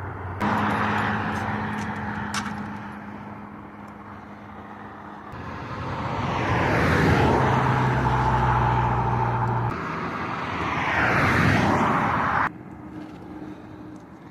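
Road traffic: motor vehicles passing close by, two of them swelling up and fading away in the second half, over a steady background of tyre and engine noise. The sound jumps abruptly a few times.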